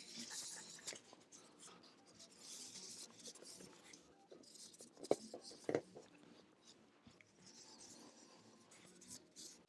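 Faint rubbing of an alcohol wipe scrubbing old, dried-out thermal paste off a CPU and heatsink, in soft strokes, with a couple of light taps about five seconds in.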